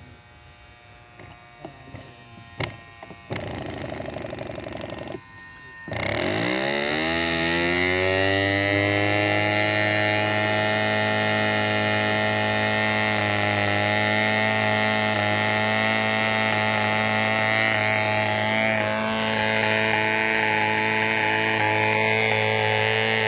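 Small model aircraft engine starting about six seconds in, its pitch rising quickly and then holding steady at running speed. A shorter buzzing burst comes a few seconds earlier.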